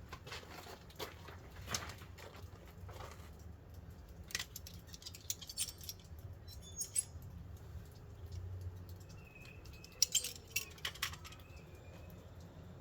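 Scattered light clicks, taps and rattles of small parts and tools being handled, as vacuum lines and fittings are worked on; the loudest cluster of clicks comes about ten seconds in.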